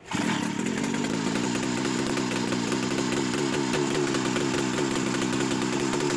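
Buran snowmobile's RMZ-640 two-cylinder two-stroke engine running steadily at a fast idle. The engine is freshly rebuilt, and the owner says the idle is still high because the piston rings are not yet bedded in to the cylinders.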